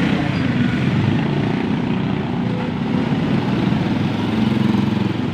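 Small motorcycle and scooter engines running as they pass close by, a steady low drone that grows a little louder near the end.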